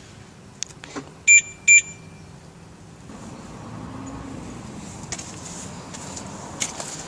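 Two short, loud electronic beeps about half a second apart, with a few clicks around them, followed by a low steady rumble.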